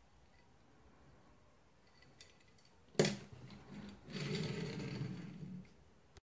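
A metal die-cast Hot Wheels Batmobile toy car knocks sharply onto a wooden tabletop about three seconds in. About a second later it rolls across the wood with a steady rumble for about a second and a half.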